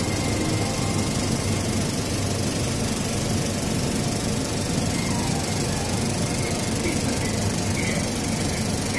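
Cinema film projector with a Cinesales CSC-23-KPK sound head running: a steady, dense mechanical clatter of the film-transport mechanism at an even level.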